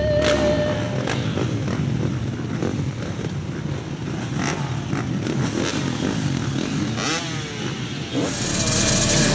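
A field of motocross bikes idling and blipping their throttles at the starting gate, many engines at once, with a sharper rev about seven seconds in.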